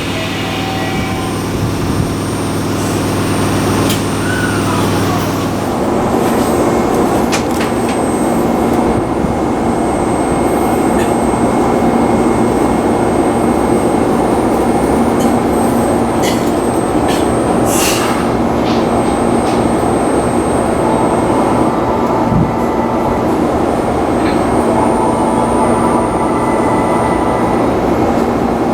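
Tokyu Meguro Line electric commuter train running: a low hum with a few steady tones for the first six seconds or so, then a steady rumble of wheels on rails with occasional short clicks.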